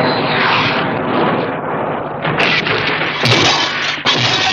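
Sound effect of a swamp mobile, a motorised swamp vehicle, arriving at speed: a loud, dense rumble of engine noise that surges and changes texture a few times.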